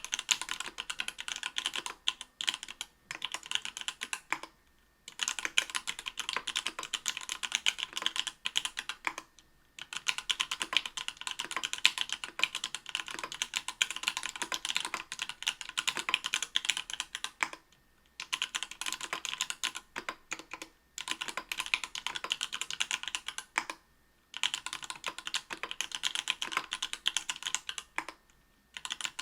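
Continuous fast typing on a mechanical keyboard with stock, unlubed Everglide Coral Red 67g linear switches on an aluminium plate under GMK keycaps: a dense run of rapid keystroke clacks, broken by short pauses a few times.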